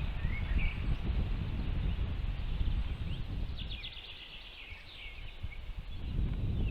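Small birds chirping at a nest, with a few chirps about half a second in and a quick run of short chirps around the middle, over a steady low rumble.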